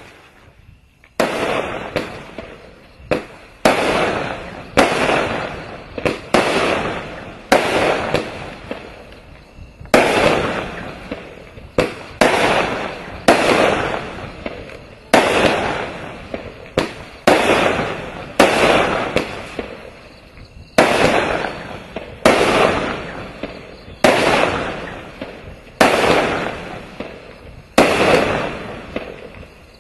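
Vulcan 'Executioner' multi-shot firework cake firing its shots in steady succession, about one a second, each sharp report with a tail that fades before the next.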